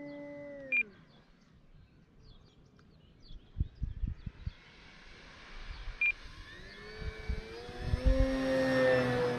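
Electric motor and propeller of an RC Cessna 150T: a steady whine that falls in pitch and dies away just under a second in as the throttle is cut, then rises in pitch again from about seven seconds as the throttle is opened, growing loud with a rush of propeller air near the end as the plane passes. Two short beeps come in between, one just under a second in and one about six seconds in, with a few low thumps around four seconds.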